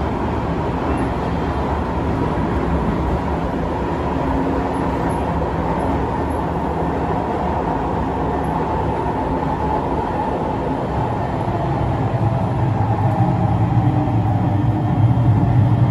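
Singapore MRT C151 train running, heard on board: a steady rumble of wheels and traction equipment with a faint held tone. It swells louder and deeper from about twelve seconds in.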